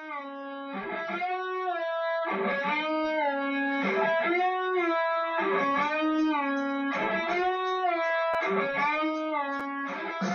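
Electric guitar music: a repeating riff of bent notes, the phrase coming round about every one and a half seconds.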